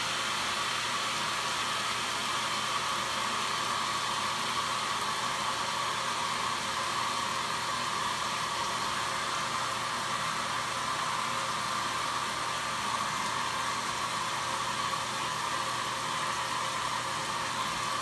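Speed Queen top-loading washing machine filling: a steady rush of water pouring into the tub.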